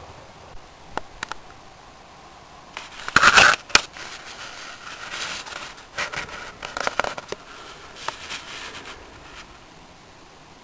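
Crackling and scraping handling noise on the camera's microphone, coming in irregular bursts with a few sharp clicks. The loudest burst is about three seconds in.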